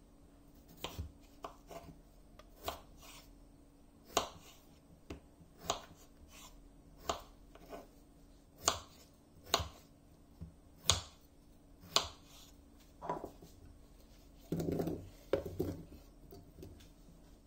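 Kitchen knife cutting peeled raw potatoes on a bamboo cutting board: a sharp knock each time the blade meets the board, irregular, about one cut a second. Near the end the potato chunks are scraped off the board and tumble into a saucepan.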